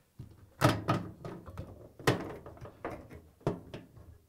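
Knocks and clicks of hands working the door lock loose from the front panel of a Samsung front-loading washer, plastic and sheet metal tapping. There are three sharper knocks, about half a second, two seconds and three and a half seconds in, with lighter taps between.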